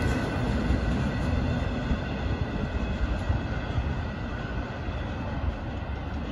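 CSX double-stack intermodal freight train rolling away over the rails, the rumble of its wheels fading as the last container well cars pass. A faint, steady high ringing sits over the rumble.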